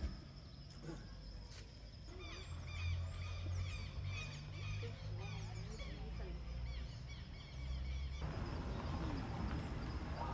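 Many birds chirping and calling at once in quick short notes, over a low steady hum. About eight seconds in, a steady rushing hiss comes in and takes over.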